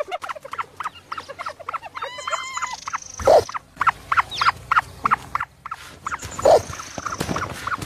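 A flock of ostrich chicks chirping: a rapid run of short, high peeps, a few each second. Twice, about three seconds apart, a louder, lower call breaks in, each just after a high falling whistle.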